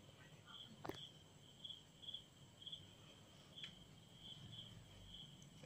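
Near silence, with a faint high chirping that repeats about twice a second and a couple of soft clicks.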